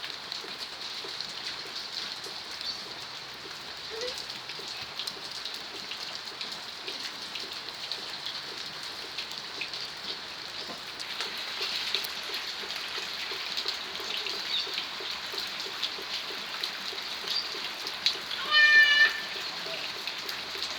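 Steady rain falling, a little heavier in the second half. Near the end there is one short, high-pitched call.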